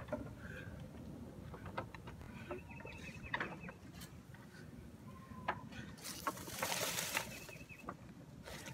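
Faint outdoor sounds: scattered light knocks of the chair and feet on the wooden deck, a short bird trill about three seconds in, and a brief hiss of noise near the end.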